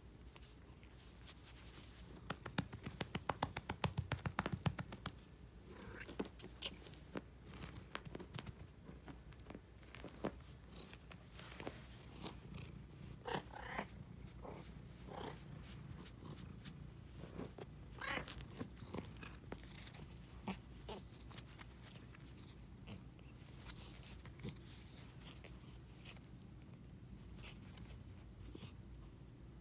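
Marmalade tabby cat being patted and rubbed, with purring and the rustle of hands on its fur. A quick run of pats comes a few seconds in, followed by scattered soft clicks and scuffles as the cat grabs at the hand.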